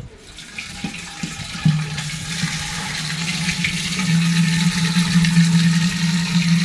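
Water from a wall tap pouring into an empty terracotta water pot, the rushing growing louder. A couple of seconds in, a low, steady hollow tone from the pot joins in and grows stronger.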